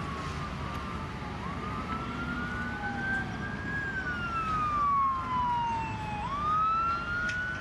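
Emergency vehicle sirens wailing, more than one at once: the pitch rises slowly, falls, then sweeps up again sharply about six seconds in, over a steady low rumble.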